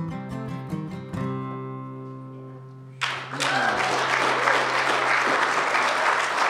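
Acoustic guitar plays a few last notes, and the closing chord rings and fades out. About three seconds in, the audience breaks into steady applause.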